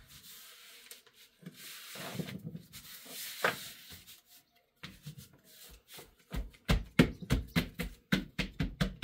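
Hands handling and working apart the hard plastic pieces of a cat exercise wheel. First comes a rustling, scraping noise, then from about five seconds in a quick run of sharp plastic clicks and knocks, several a second.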